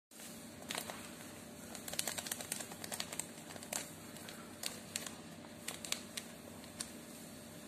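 A paper yeast sachet crinkling and being tapped, with scattered sharp, irregular ticks as dry yeast granules are shaken out into a small ceramic bowl, over a steady low hum.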